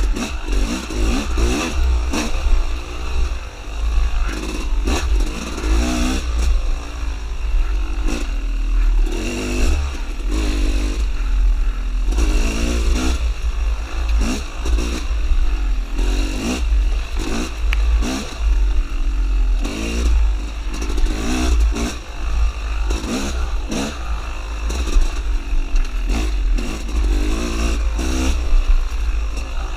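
Dirt bike engine revving up and down again and again as it is ridden hard along a singletrack trail. Over it lie a constant low rumble and frequent knocks and rattles from the bike over rough ground.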